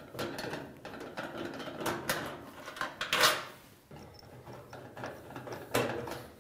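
Screwdriver backing out the screws that hold a dryer's sheet-metal top panel: irregular metal scraping and clicking, with one louder clack a little after three seconds in.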